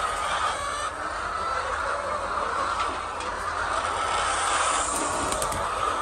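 A large flock of laying hens clucking together in a steady, dense chorus.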